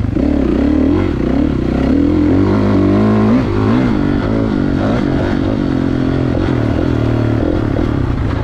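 Kawasaki KX450's single-cylinder four-stroke engine being ridden, revving up and dropping back over and over as the throttle is opened and closed.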